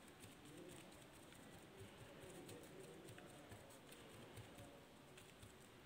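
Faint, irregular soft pats and light ticks of a paint-loaded sponge dabbing white acrylic through a paper stencil onto a sheet of paper.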